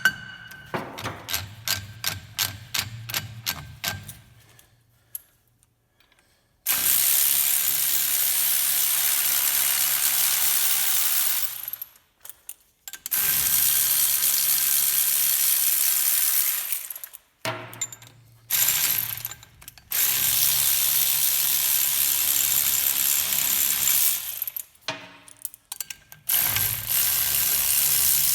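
A run of mechanical clicks, about three a second and fading over the first few seconds, then several long bursts of a steady, loud whirring tool, each lasting four to five seconds with short pauses between. This is the work on the hub puller once the Jensen Interceptor's rear hub has come loose on its taper.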